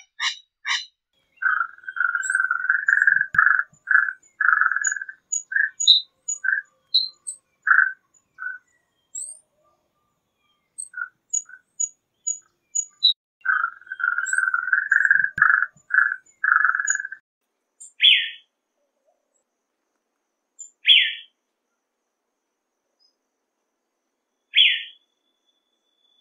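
Scarlet-banded barbet singing: long runs of rapid, low-pitched notes, some strung into trills a couple of seconds long and some given singly, with faint high chirps from other birds behind. It opens with the last few calls of a curl-crested aracari. Near the end come three short, louder, higher calls a few seconds apart.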